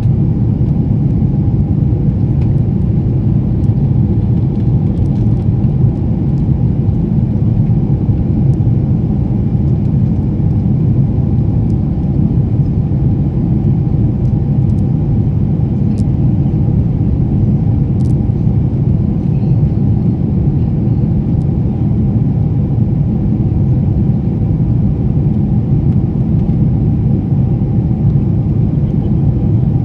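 Steady low rumble of a jet airliner's engines and rushing air, heard inside the passenger cabin.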